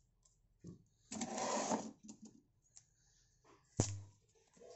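Clear plastic protective wrap being peeled off an AirPods Pro charging case. The film crinkles and rustles for about a second, with small crackles after, and there is one sharp click a little before the end.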